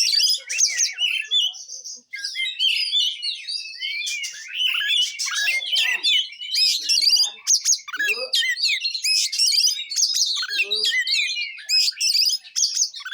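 Oriental magpie-robin (kacer) singing a fast, varied song of whistles and chattering phrases in the rolling 'roll tembak' style, with a brief pause about two seconds in.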